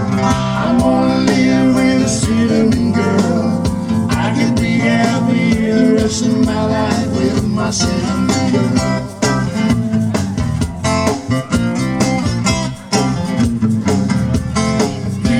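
Live band playing a guitar-led country-rock song, mostly instrumental with a steady beat.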